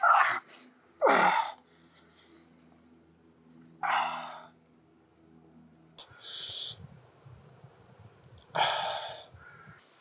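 A man breathing raggedly: about five loud gasps and exhales, one every second or two. The one about a second in carries a voice that falls in pitch.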